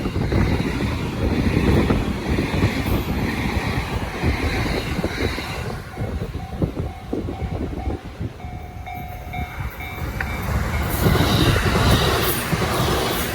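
A train passes over a level crossing on the JR Sotobo Line. It rumbles steadily, and its wheels clatter over the rail joints. A brief steady whine sounds about halfway through, and the noise swells again near the end.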